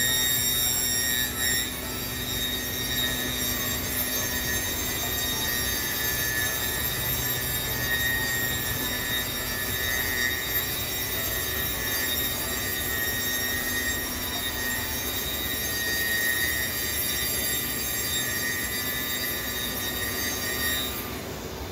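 Biesse Rover A CNC boring and routing centre running, a steady high-pitched whine of several tones over machine noise. The whine cuts off abruptly near the end.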